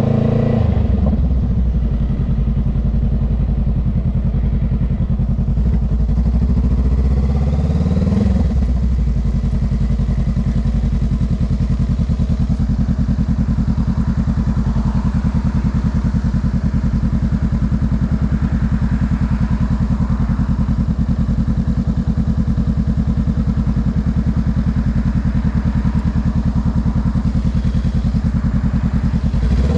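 Honda Rebel 500's parallel-twin engine, heard from the rider's seat. The revs fall away at the start, climb briefly and drop again about eight seconds in, then the engine idles steadily for some twenty seconds before the revs rise again at the very end as the bike pulls away.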